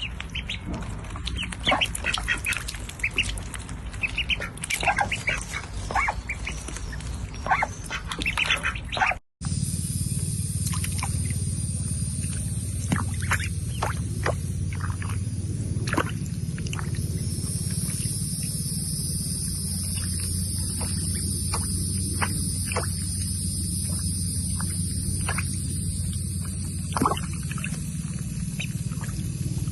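Birds calling, many short chirps close together, then after a brief break at about nine seconds sparser calls over a steady low rumble and a high hiss.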